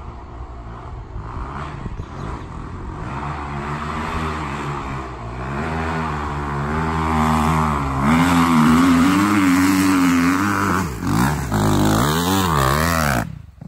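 Dirt bike engine growing louder as it approaches, its pitch wavering up and down with the throttle, then revving up and down hard as it comes close by and spins up dirt with its rear wheel. The sound cuts off suddenly near the end.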